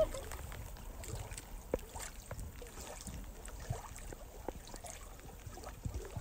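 Small waves lapping and trickling at the water's edge, with scattered light ticks and taps.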